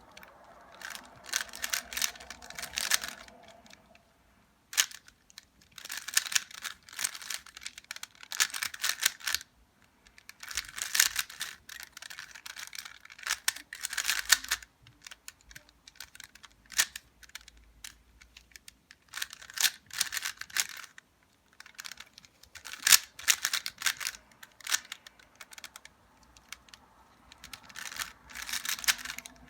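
A 3x3 Rubik's Cube being turned fast during a timed solve: quick runs of plastic clicking and clacking as the layers turn, broken by short pauses between runs of moves.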